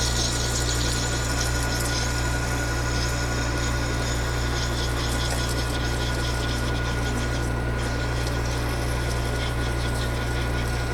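Metal lathe running steadily while a cut-off (parting) blade is hand-fed deep into aluminium bar to part off a slug: a constant motor hum under a high, even cutting sound, with no chatter or catching.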